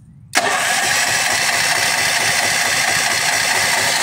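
The Firman generator's 439 cc OHV engine is being turned over on its electric start. The sound sets in abruptly about a third of a second in and holds loud and steady.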